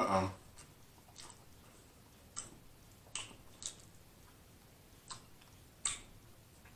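A person chewing food, close to the microphone: several soft, wet mouth clicks and smacks at irregular intervals, the loudest right at the start.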